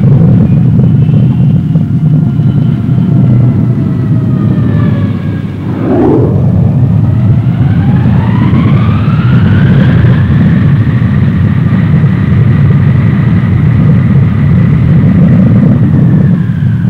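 Jet engines of a Lockheed C-5 Galaxy running on the ground as it taxis: a loud, steady rumble under a turbine whine. The whine falls in pitch, dips about five and a half seconds in, then rises over the next few seconds as the engines spool up, and holds steady.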